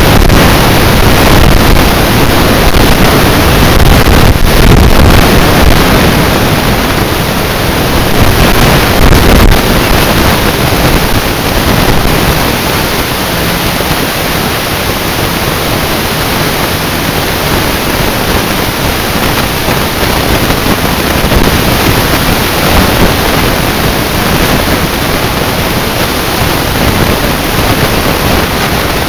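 Wind buffeting the microphone: a loud, steady rushing that covers the other sounds.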